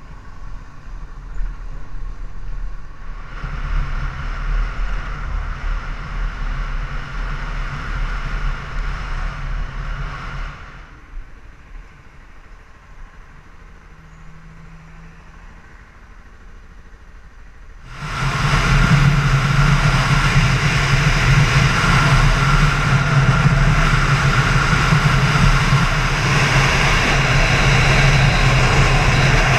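Motorcycle engine running under way, with wind rushing over the handlebar-mounted microphone. The sound is moderate at low speed. From about two-thirds of the way in it jumps to a much louder, steady engine drone and wind roar at highway speed.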